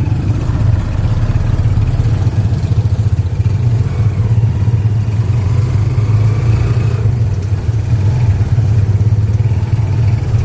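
Tuk-tuk's small motorcycle engine running steadily as it drives along, a loud constant low drone.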